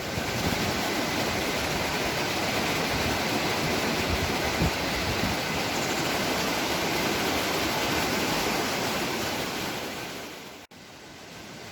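Waterfall's falling water rushing steadily, a dense even hiss that fades out near the end and then cuts off abruptly to a much quieter background.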